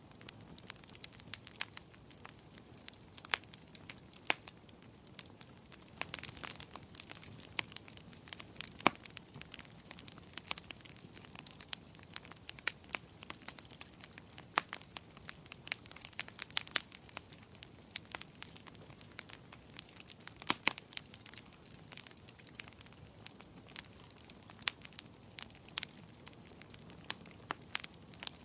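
Wood fire in a fireplace crackling, with frequent sharp irregular pops and snaps over a soft hiss of flames.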